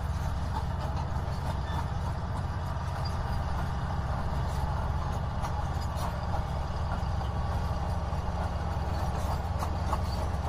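Crawler bulldozer's diesel engine running steadily while it pushes dirt.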